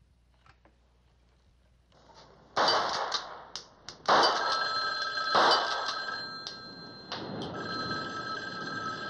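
Telephone bell ringing, starting about two and a half seconds in and coming in repeated loud bursts: the prearranged ring signal.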